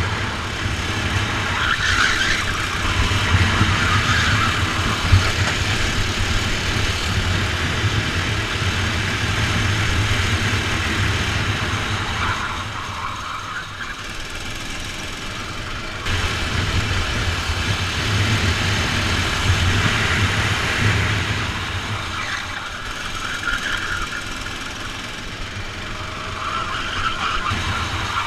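Rental kart engine heard from onboard, revving up on the straights and easing off into the corners several times, with the drone of other karts close by.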